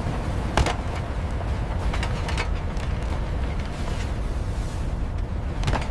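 Steady low rumbling of factory machinery, with a few sharp knocks about half a second in and near the end.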